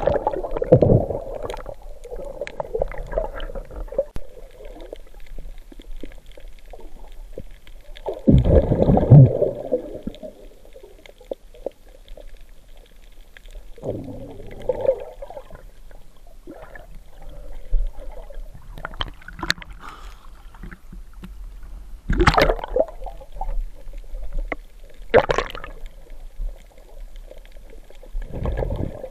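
Water gurgling and sloshing around an underwater camera, in irregular bursts every few seconds over a low steady rumble. The biggest surge comes about eight to ten seconds in, and there are shorter sharp splashes near the end.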